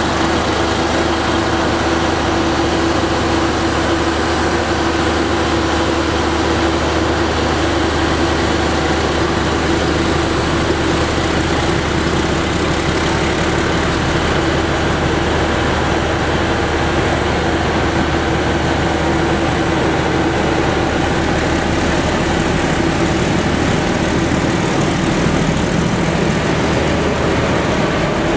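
KTM YDM4 diesel-electric locomotive's ALCO six-cylinder engine working as it pulls a passenger train slowly away, a steady drone with a constant hum, mixed with the coaches rolling past.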